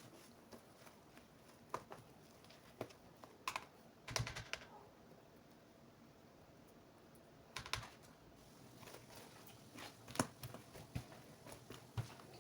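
Faint, irregular clicks and taps of mixing mandazi dough (flour, sugar, milk powder and warm water) in a bowl, with quiet stretches between them.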